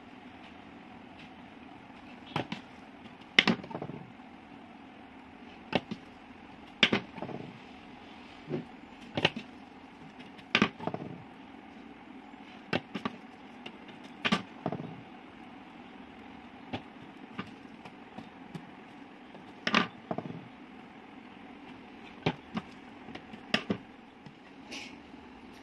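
Irregular sharp clicks and knocks, close to twenty of them with uneven gaps, from a soldering iron and metal-backed LED boards being handled and worked on a table. A steady low hum runs underneath.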